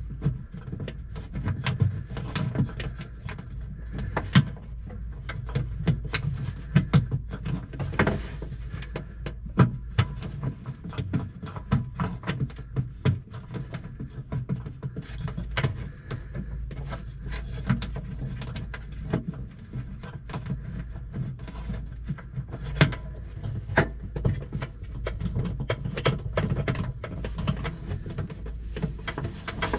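Irregular clicks, taps and knocks of hands and tools working at fuel-line fittings during a fuel shutoff valve install, over a steady low hum.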